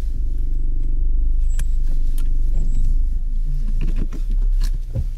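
Car running with a steady low rumble. There are two sharp clicks in the middle, and some irregular higher sounds over the last couple of seconds.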